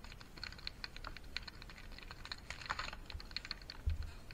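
Rapid, irregular clicking and crackling as live fish and spiny lobsters are tipped out of a mesh net bag into a plastic basin, their wet shells, legs and fins scratching and tapping against each other and the basin. One dull low bump comes near the end.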